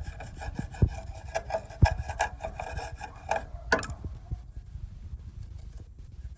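An old screwdriver scraping caked grass from around the bolts on a mower deck: quick repeated scraping strokes with sharp clicks. It stops about four seconds in, leaving only faint handling sounds.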